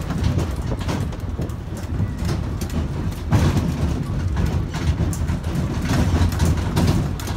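Mini train moving along, with a steady low rumble and irregular clacks and rattles.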